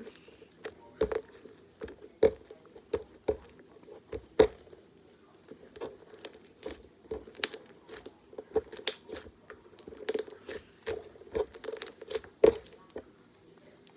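Sticky homemade glue slime being mixed and squished, making irregular wet pops and clicks, one or two a second.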